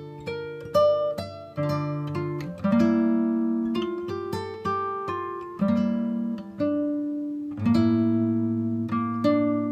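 Background music of plucked acoustic guitar, single notes and chords struck one after another and ringing out.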